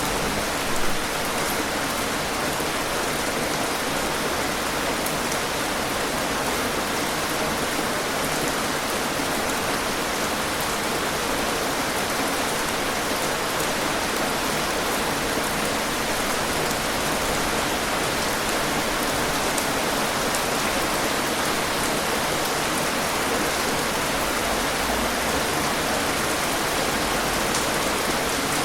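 Heavy rain falling steadily, a dense even hiss of drops with one brief louder hit about a second in.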